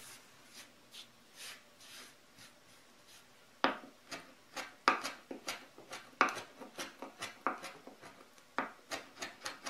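Kitchen knife chopping fresh thyme leaves on a wooden cutting board: sharp, irregular knocks of the blade on the board, a few per second, starting about a third of the way in.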